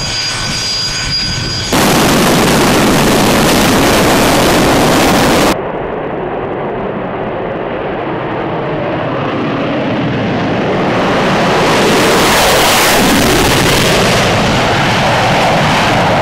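Military jet engines. A Sukhoi Su-25's turbines whine at taxi with a few steady high tones. From about two seconds in, a loud jet engine noise runs at high power and cuts off abruptly a few seconds later. Then a second jet's noise builds slowly, is loudest about twelve seconds in, and stays loud.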